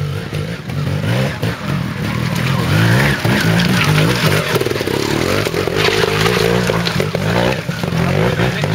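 Trials motorcycle engine revving in short rises and falls of the throttle as it climbs a rocky track. It is loudest as it passes close by about three to five seconds in, with sharp knocks mixed in.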